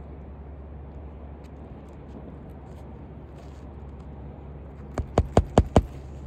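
Hammer driving a roofing nail into a new asphalt shingle: five quick, sharp strikes near the end, over a steady low hum.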